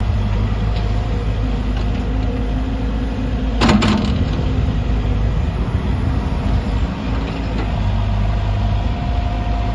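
JCB NXT 140 tracked excavator's diesel engine running steadily as it digs sand, with one short loud clatter about three and a half seconds in as the bucket works.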